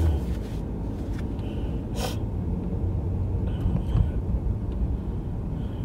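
Small car's engine and tyre noise heard from inside the cabin while driving, a steady low rumble, with a short breath sound about two seconds in.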